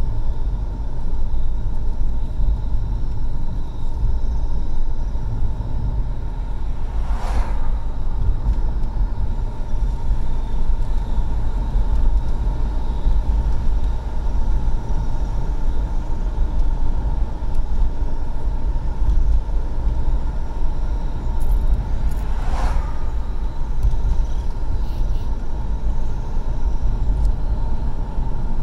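Steady low road and engine rumble of a car driving, heard from inside the cabin, with two brief swishes about fifteen seconds apart.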